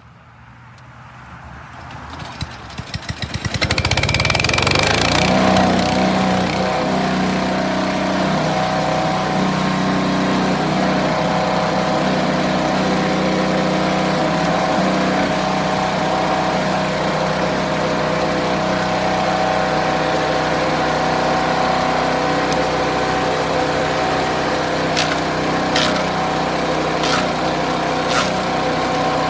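Landworks gas-powered wood chipper's small engine catching after a rope pull, firing faster over the first few seconds and building to a steady high-speed run. A few sharp cracks come near the end.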